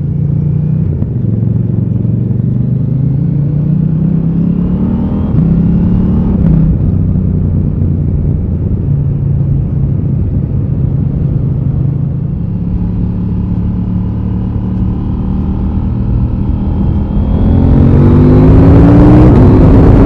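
2020 KTM 890 Duke R's parallel-twin engine under way, heard from on board the bike. The revs climb for the first few seconds, drop back about six seconds in, and hold fairly steady at a cruise. Near the end they climb sharply under hard acceleration and the engine gets louder.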